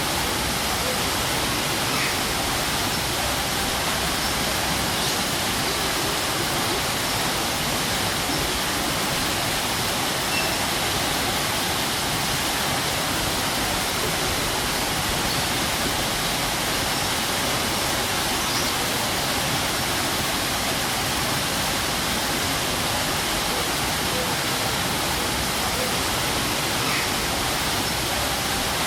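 Strong waterfall: a loud, steady, even rush of falling water.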